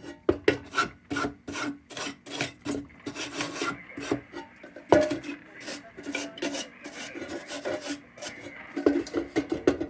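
Hand scrubbing on the old lantern's metal body: quick, irregular rasping strokes, several a second, with a sharper scrape about five seconds in.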